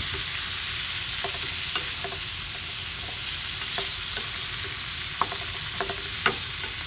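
Bitter melon and meat sizzling as they stir-fry in a pan: a steady frying hiss, with a few light taps of a utensil against the pan.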